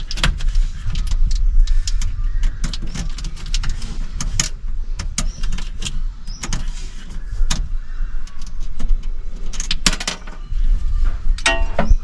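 Irregular metallic clicks and clinks of hand work among the hydraulic fittings of a mini skid steer, over a low steady rumble.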